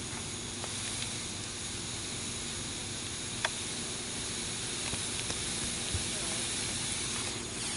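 Smoke-bomb firework hissing steadily as it spews smoke, with a few faint ticks.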